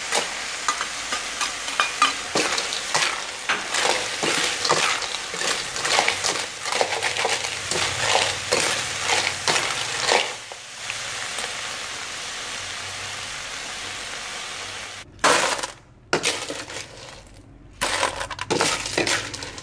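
Small freshwater clams stir-fried in a wok: the ladle scrapes and the shells clatter over a steady sizzle, then for a few seconds only the sizzle goes on. About fifteen seconds in the sizzle stops and the cooked shells clatter and clink into a metal tray.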